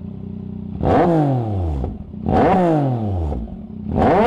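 Yamaha MT-09's three-cylinder engine, its silencer baffle removed, idling and then revved three times in quick blips. Each rev jumps up sharply and falls back to idle over about a second.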